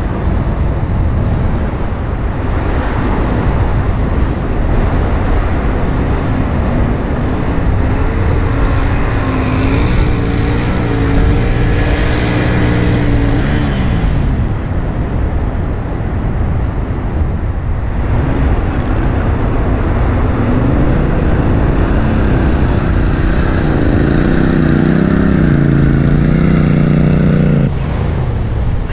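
Motorcycle engine revving, its pitch rising and falling, over a steady rush of surf and wind on the microphone. The engine fades out about halfway through, comes back louder, and cuts off suddenly near the end.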